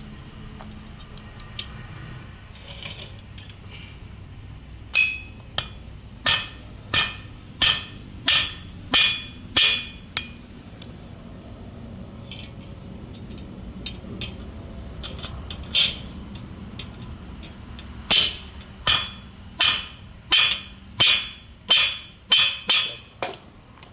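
Hammer striking metal in two runs of steady blows, about eight and then about ten at roughly one and a half per second, each with a short metallic ring, over a steady low hum.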